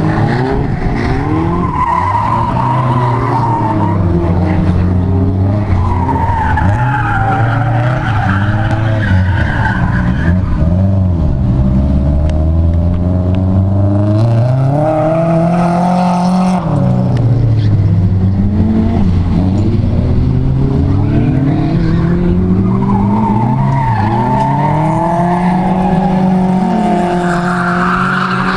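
Nissan 240SX drifting: the engine revs up and falls back again and again as the car slides, with the rear tires squealing in long stretches, strongest about a quarter of the way in and again near the end.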